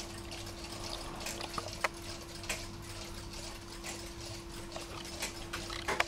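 Many mechanical cuckoo clocks ticking out of step with one another, giving a scatter of irregular clicks, over a steady hum.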